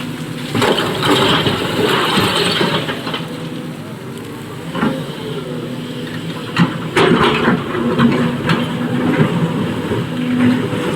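SANY excavator's diesel engine running steadily while loads of quarry stone crash and rattle into a Bharat Benz tipper's body several times.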